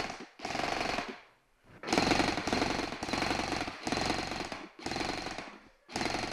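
Airsoft electric gun (AEG) firing full-auto: a string of about six rapid bursts, each under a second long, with short pauses between them.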